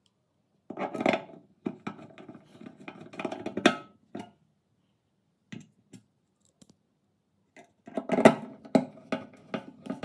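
Hands seating a small synchronous turntable motor in its sheet-metal mounting: clicks, knocks and scraping of metal and plastic for about three seconds, a pause, then more clicking and knocking near the end.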